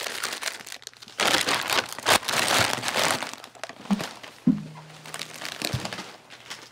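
A bag of chips crinkling and rustling in crackly bursts, loudest for a couple of seconds near the start.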